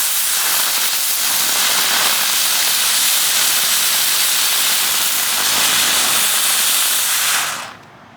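A fused line of ground bloom flower fireworks spinning and spraying sparks together, making one loud, steady hiss that cuts off near the end.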